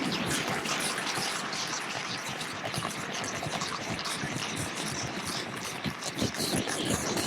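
Continuous dense noise with many small irregular crackles and pops, steady throughout.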